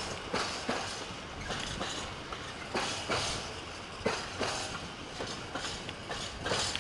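Mostly empty container flat wagons of a freight train rolling past at low speed. Their wheels clatter over rail joints with sharp clicks in an uneven rhythm, over a steady rumble.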